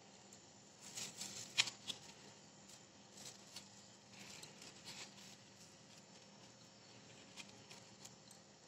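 Faint scattered rustles and small clicks of hands working with soft food and a paper packet of silver leaf, in a few short clusters, over a faint steady hum.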